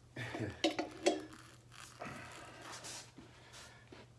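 A few light knocks and a soft rubbing sound from hand work on a motorcycle tire being fitted to its rim, with the bead lubed with soapy water.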